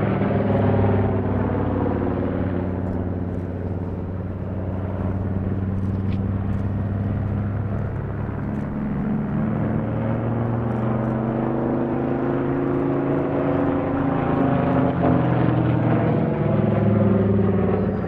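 Saab B17A dive bomber's radial engine and propeller droning through a display turn overhead. The pitch and loudness fall off in the middle, then swell and rise again near the end as it comes back around.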